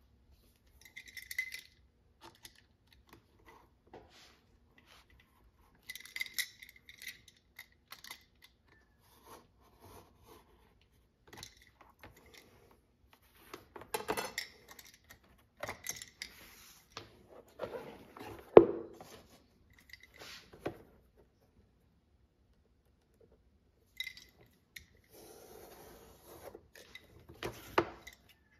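Utility knife cutting latigo leather along a steel straightedge: intermittent scraping strokes of the blade through the hide, with clinks of the metal rule and rustle of the stiff leather being handled. One sharp clack, the loudest sound, about two-thirds of the way through.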